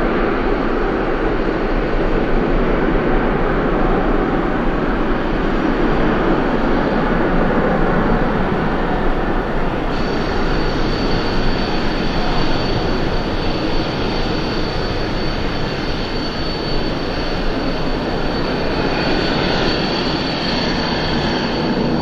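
Twin turbofan engines of an ANA Boeing 777 at takeoff power as the jet lifts off and climbs away: a loud, steady roar. A thin, steady high tone joins about ten seconds in.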